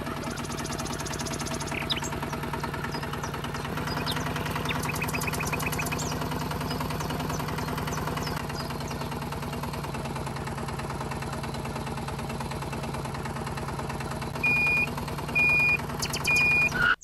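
Tractor engine running steadily with a fast, even knocking beat. Near the end come three short, high beeps.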